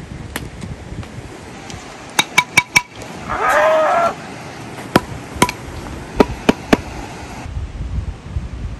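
Pickleball play: sharp, hollow pocks of a plastic pickleball striking a paddle and bouncing on the concrete court. There is a quick run of four taps about two seconds in, then scattered single hits. A short vocal cry comes about three and a half seconds in.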